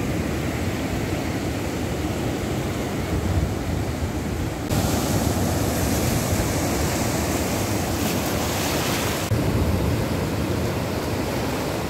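Ocean surf breaking on a sandy beach: a steady rush of waves, hissier from about five seconds in.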